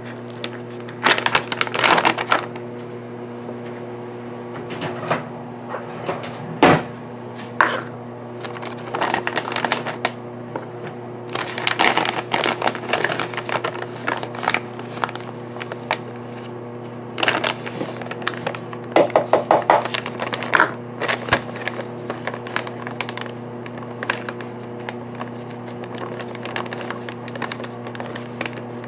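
Paper bag of almond flour being handled and crinkled on a stone counter, irregular rustles and knocks in clusters, over a steady low electrical hum.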